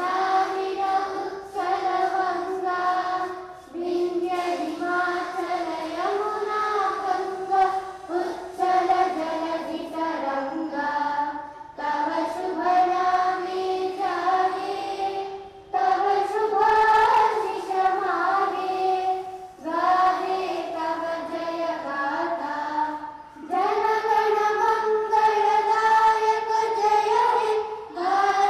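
A large group of schoolchildren singing together in unison, in sung phrases of about four seconds with short breaks between them.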